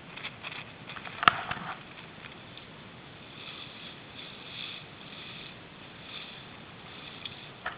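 Choppy shallow water splashing and lapping, with scattered crackles and one sharp knock about a second in, the loudest sound. Softer rushing hiss comes midway.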